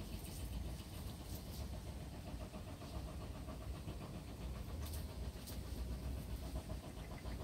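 A Labrador retriever moving through tall grass, with brief rustles of the blades about a second in and again around five seconds, over a low steady rumble.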